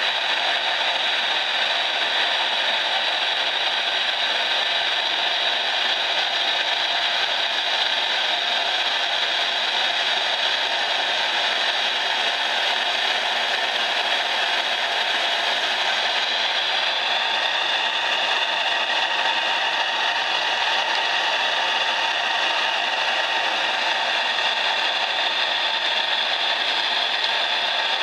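Saito T2DR twin-cylinder model steam engine and its boiler running under steam: a steady, even hiss, with no separate exhaust beats standing out. A bit over halfway through, the tone of the hiss shifts.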